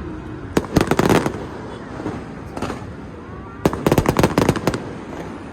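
Fireworks going off in rapid strings of sharp bangs: a quick cluster about a second in, a single crack midway, and a longer rattling string of bangs a little before the end.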